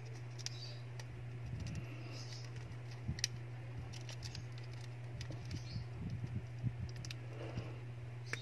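Scattered small plastic clicks and taps as fingertips press flex-cable connectors and the board into a smartphone's frame, a few sharp clicks among softer ones, over a steady low hum.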